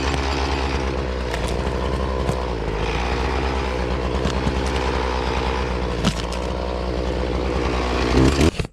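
Chainsaw with an 18-inch bar running steadily under load in a cut through a large trunk, then shutting off abruptly near the end. The saw is at its limit in a tree this size and struggling, its chain dulled by the cut.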